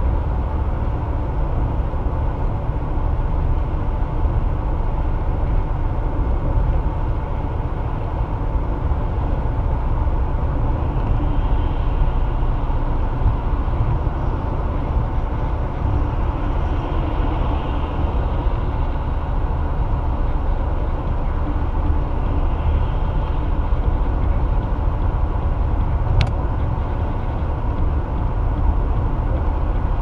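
Steady road noise of a car driving on a highway: a constant rumble of tyres and engine. There is a single brief click late on.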